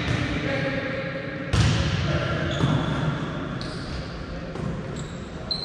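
A volleyball struck hard about one and a half seconds in, with the hit echoing through a large sports hall. Players' calls and shouts run around it.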